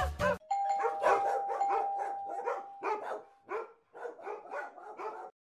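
A dog barking and yipping in a quick run of short calls, about three a second, over a steady held tone in the first half. It cuts off suddenly near the end.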